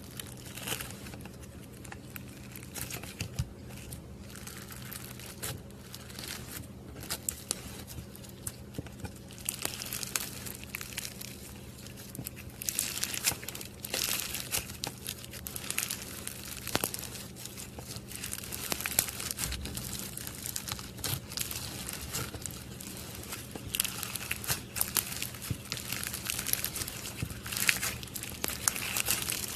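Slime being squeezed and stretched by hand, giving irregular bursts of crinkly clicks and pops, busier and louder in the second half.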